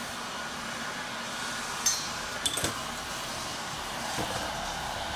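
Light metallic clinks from the parts of a Shimano dynohub being handled, the aluminium hub shell and the removed internal assembly: one about two seconds in, then a quick double clink half a second later, over a steady background hiss.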